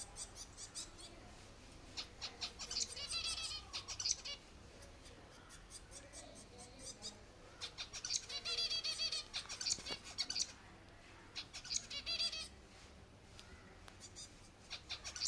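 Baby finch chirping in quick trains of high, repeated notes. It comes in several bursts of a second or two each, with short pauses between them.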